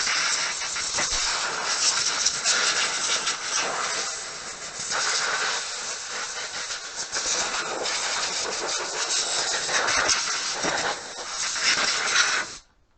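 Compressed-air blow gun hissing loudly as it blows dust off a motorcycle, rising and falling in strength, then cutting off abruptly just before the end.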